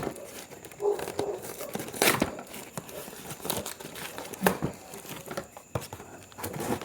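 Packaging being handled and torn open while a parcel is unpacked: irregular crinkling and rustling with sharp tearing sounds every second or so.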